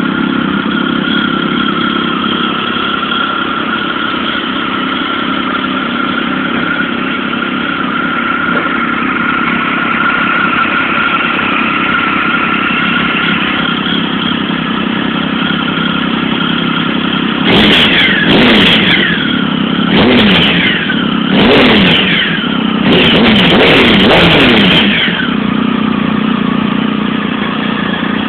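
Triumph Tiger 1050's three-cylinder engine breathing through an aftermarket Arrow silencer, idling steadily and then blipped several times in quick succession, each rev rising and falling back; the last rev is held for about two seconds before the engine settles back to idle.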